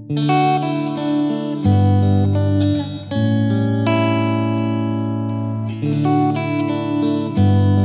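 Background music: guitar with plucked strings, held notes changing every second or two.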